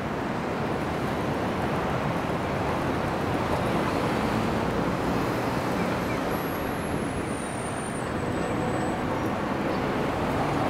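Steady road traffic noise at a busy intersection as a Toyohashi Railway streetcar approaches round the curving track. A faint high whine steps down in pitch about two-thirds of the way through.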